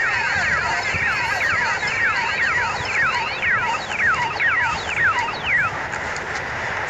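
Cartoon soundtrack playing from a phone: a rapid flurry of high whistle-like chirps, each falling in pitch. They overlap thickly at first, thin out to single chirps, and stop about six seconds in, over a steady hiss.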